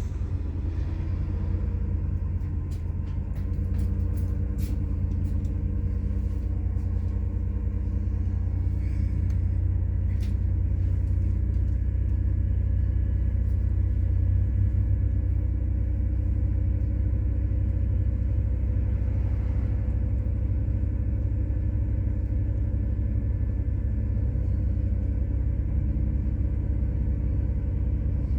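MAZ-103 methane-powered city bus on the move, heard from inside: a steady low engine and road rumble that grows a little louder over the first half, with faint scattered rattles and clicks.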